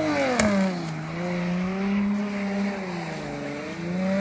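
Car engine revving under load: its pitch drops sharply just after the start, holds, dips again, then climbs near the end. A sharp click comes about half a second in.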